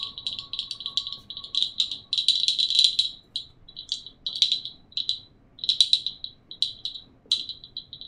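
Hand-held rattle shaken in irregular bursts of a few shakes each, with short pauses between them.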